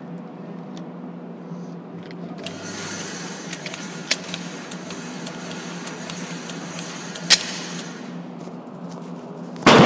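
A Glock 17 9 mm pistol shot near the end, with a reverberant tail from the indoor range. Before it, a steady low hum with a few sharp clicks and one sharper crack about seven seconds in.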